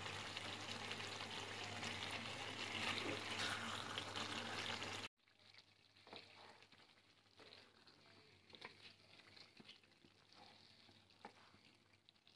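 Beef pieces frying in spiced oil and their own juices in a pan, a steady sizzle as the meat is cooked down (bhuna). About five seconds in the sound cuts off abruptly, leaving only faint scattered pops.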